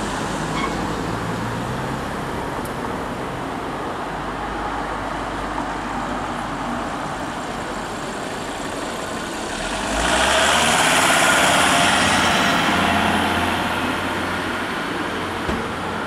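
Street traffic noise with a low engine hum; about ten seconds in, a car passes close by, its engine and tyre noise swelling and fading over a few seconds.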